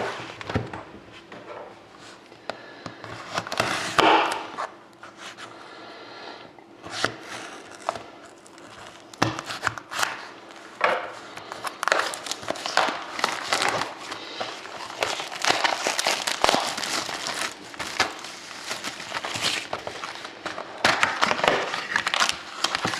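Plastic wrapping crinkling and rustling as a sealed box of hockey cards is unwrapped and opened, with irregular crackles and light taps, busier in the second half.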